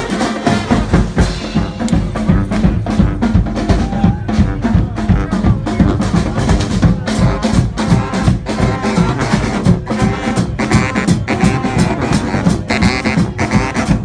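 Brass marching band playing: horns over a quick, steady beat of bass drum and snare, with higher, brighter horn notes coming in near the end.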